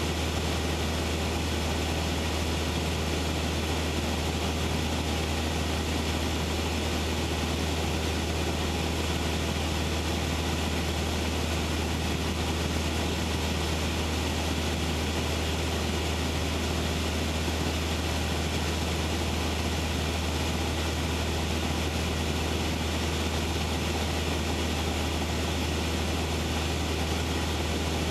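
Cessna 172's piston engine and propeller running at steady power in level flight, heard from inside the cockpit as a constant low drone.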